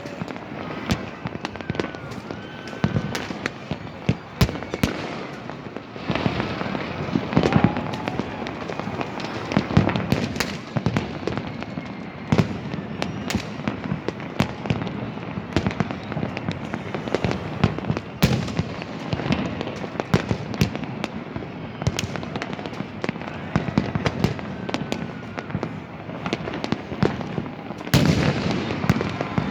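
Many fireworks going off at once: a continuous barrage of overlapping bangs, pops and crackles, with the odd whistle of a rocket going up.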